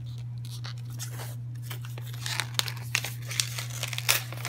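Wrapping paper around a book being handled and torn open: crinkling and rustling, with sharper crackles and tears growing more frequent in the second half. A steady low hum runs underneath.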